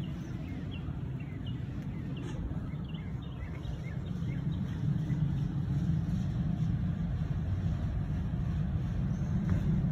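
Outdoor street ambience: a steady low rumble, with several short bird chirps in the first few seconds.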